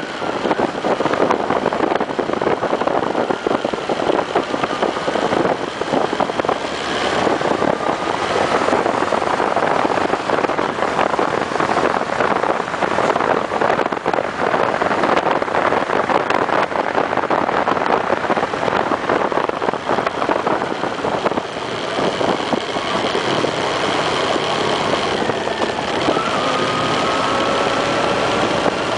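Wind rushing over a motorcycle-mounted microphone, with the Honda CB1300's inline-four engine running underneath. Near the end the engine note comes through more clearly and slowly rises as the bike pulls away.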